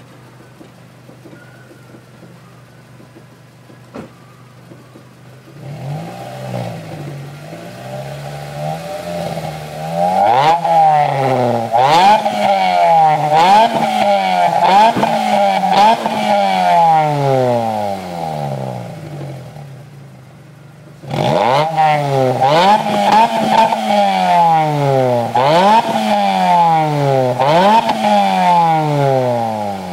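Mitsubishi Colt CZC with a Magnaflow aftermarket exhaust idling steadily, then revved repeatedly while standing still, the exhaust note climbing and falling about once a second. It drops back toward idle about two-thirds of the way through, then another run of quick revs follows.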